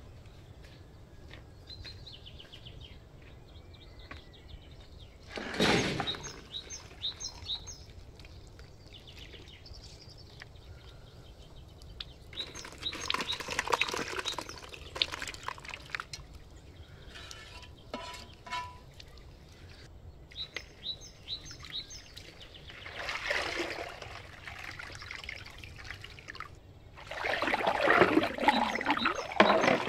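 Water running from a hose into a plastic colander of chopped raw lamb organ meat, rinsing it, loudest near the end; earlier, about halfway through, the meat slides off a metal tray into the colander. Small birds chirp throughout, and a brief loud noise comes about six seconds in.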